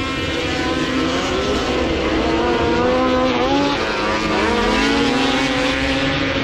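Several racing snowmobiles running at full speed, their overlapping engine notes rising and falling as the sleds pass by.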